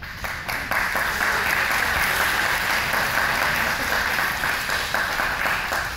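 Audience of parents and children applauding with many hands clapping together. It starts suddenly and dies away near the end.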